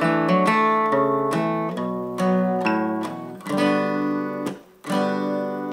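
Acoustic guitar strummed in a chord progression, each chord ringing and fading before the next, with a short break about four and a half seconds in.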